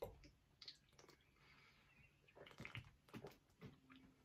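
Near silence, with faint sipping and swallowing as a fizzy soft drink is drunk from a can.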